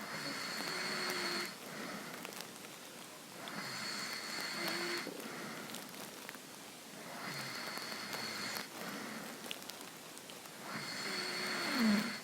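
A sleeping person breathing heavily in soft snores: four hissing breaths at a slow, even pace, about one every three and a half seconds. A short falling tone just before the end is the loudest moment.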